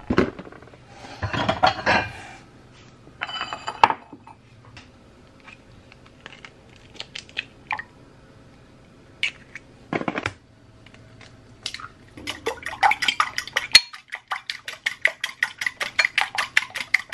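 Clatter of dishes and cookware, then, after about twelve seconds, a fork beating eggs in a glass bowl: a quick, even clicking of about six strokes a second.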